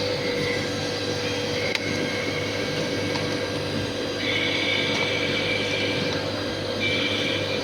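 CNC machine running: a steady mechanical hum with a constant mid-pitched tone, joined by a higher whine about four seconds in and again near the end.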